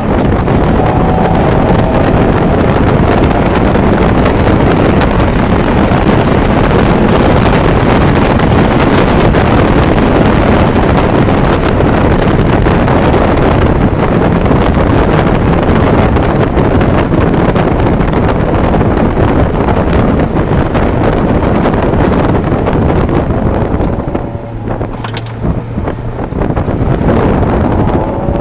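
Mazda Miata's 1.6-litre B6 four-cylinder engine running under a loud rush of wind on the microphone. About four seconds before the end the rush drops away to a steady engine hum, then the pitch climbs again. The owner says this engine has rod knock.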